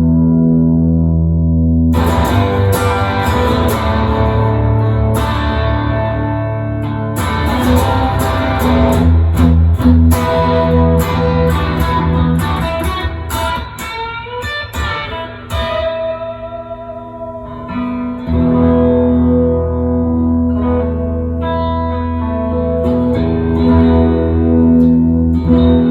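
Rebuilt 2018 Gibson Les Paul Deluxe electric guitar played through an amp: ringing chords and lead lines with string bends, ending on a held chord.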